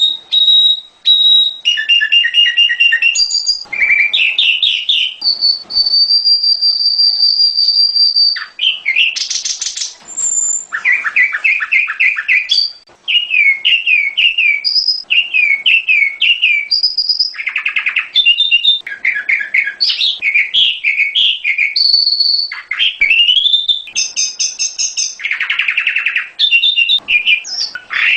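Prenjak gunung song played as a lure recording: a loud, varied run of high whistles, fast trills and quickly repeated down-slurred notes, with hardly a pause.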